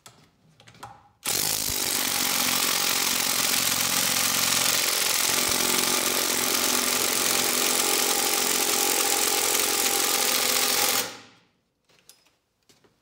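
Impact wrench hammering steadily on a flywheel puller's centre bolt for about ten seconds, starting about a second in and cutting off sharply near the end. The snowmobile engine's flywheel does not come off: the impact lacks the power to pull it.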